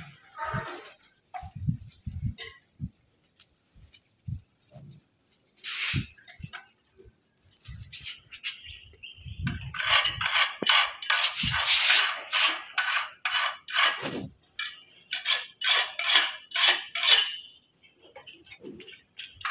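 Irregular scraping and rubbing strokes of hard material against hard material, with occasional dull knocks. There is a long stretch of dense scraping midway, then a run of quick, evenly spaced strokes.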